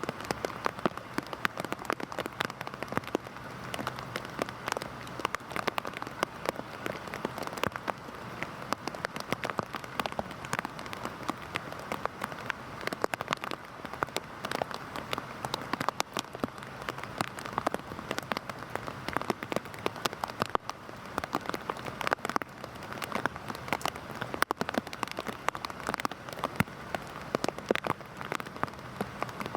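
Heavy rain falling on a hard surface: a steady hiss thick with sharp, distinct drop hits.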